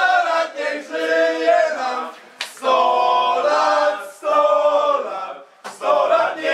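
Group of men singing together in chorus, unaccompanied, in loud held phrases broken by short pauses about every one and a half to two seconds.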